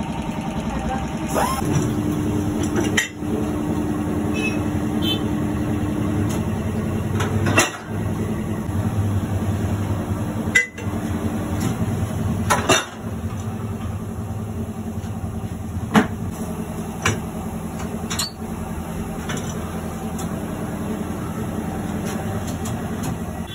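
Tyre-changing machine running with a steady motor hum while a car tyre is worked onto a steel rim, with sharp metallic clicks and knocks at irregular intervals.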